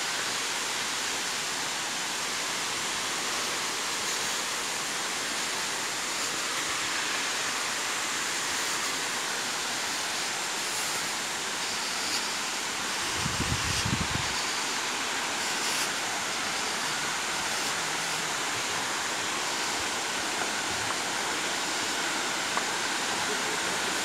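Güzeldere waterfall rushing steadily, heard close by from the footpath. A brief low rumble about halfway through.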